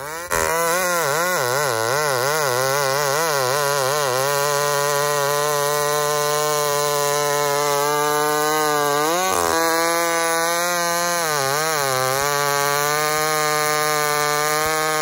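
Two-stroke chainsaw cutting through a log. For the first few seconds its pitch swings up and down as the throttle is worked. It then holds a steady high pitch under load in the cut, with brief dips about nine and eleven and a half seconds in.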